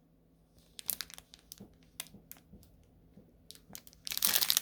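Small plastic bags of diamond-painting drills being handled: scattered light clicks and rustles, then a short burst of plastic crinkling about four seconds in.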